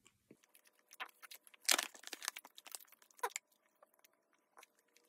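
Plastic snack bag of gummy candy crinkling as it is handled, in irregular bursts of sharp crackles, loudest about two seconds in.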